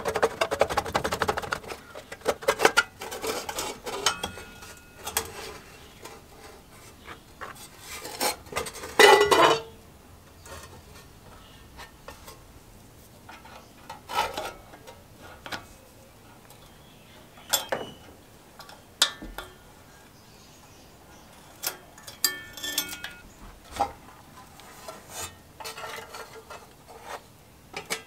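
Metal clinks, clicks and clatter as the sheet-metal recoil starter and blower housing of a 5 hp Briggs & Stratton engine are handled and taken off with hand tools. A quick run of clicks at the start, a loud clatter about nine seconds in, then scattered single clicks, some with a short metallic ring.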